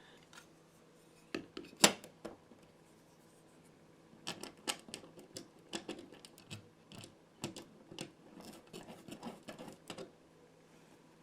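Scattered light clicks and scrapes of a wall switch plate and its small screws being handled. A sharp click comes about two seconds in, then a busier run of small clicks from about four seconds to near the end.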